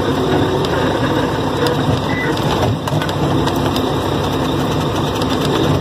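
Heavy truck's diesel engine running at low speed, heard from inside the cab, with constant small rattles and clicks from the cab as it moves over the dirt road.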